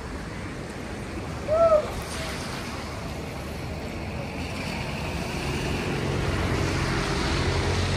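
Wind and water noise across a harbour, with a boat engine's low hum building in the second half. A short, arching call, the loudest sound, comes about one and a half seconds in.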